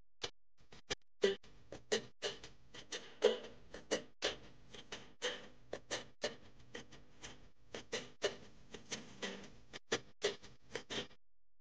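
Dry rice and dal grains poured from small bowls into a larger bowl, pattering and clicking irregularly as they land. A bowl rim knocks now and then.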